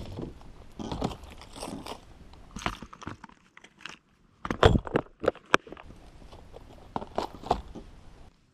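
Close handling noise from fishing gear: irregular clicks, knocks and crinkling, with a cluster of louder knocks about halfway through.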